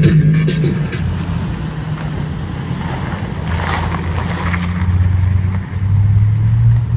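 A motor vehicle's engine running, a steady low hum whose pitch rises a little near the end.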